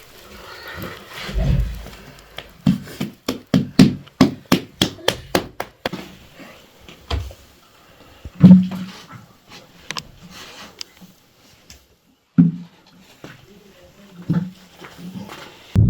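A quickening run of sharp wooden knocks, several a second, then scattered knocks and one louder thump just past halfway.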